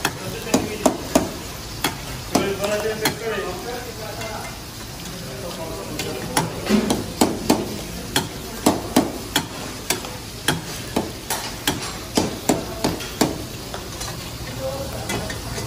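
Metal ladle clanking and scraping against a steel karahi wok as mutton karahi is stirred, over the sizzle of the meat and tomatoes frying. The strikes come irregularly at first, then about three a second through the middle of the stretch.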